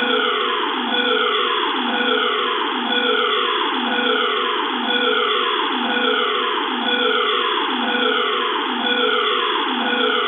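Electronic emergency evacuation alarm sounding a falling sweep tone that repeats about once a second, heard at a slight distance with reverb.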